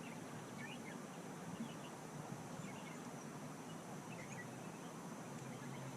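Quiet outdoor ambience with a steady low background hum and a few faint, brief bird chirps scattered through it.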